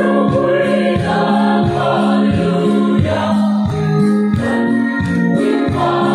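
Mixed choir of women and men singing a gospel hymn in parts, over a steady beat of about two strokes a second.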